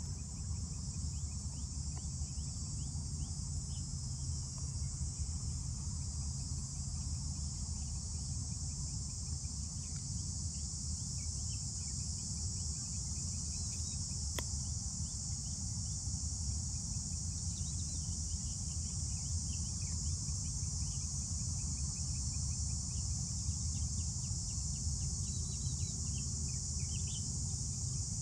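A steady, high-pitched insect chorus that does not let up, with scattered short chirps above a low rumble, and one sharp click about halfway through.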